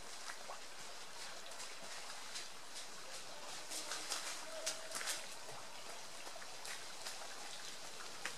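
Running footsteps of a trail runner passing on the road, a quick run of steps loudest about four to five seconds in, over a steady outdoor hiss.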